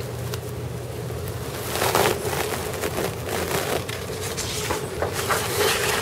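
Room tone in a lecture room: a steady low hum and background noise, with soft rustling and handling noises about two seconds in and again near the end.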